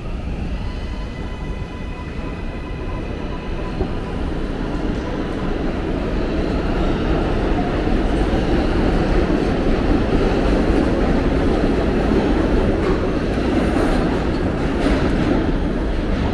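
New York City subway train moving through the station: a steady rumble that grows louder toward the middle and eases off near the end, with a faint high whine of several tones in the first few seconds.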